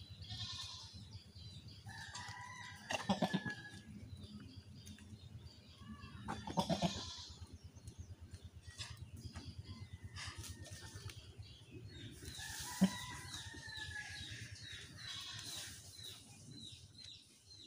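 Farmyard fowl calling, chickens clucking and crowing, with small birds chirping rapidly near the end. A few louder short calls stand out, the loudest around three and seven seconds in.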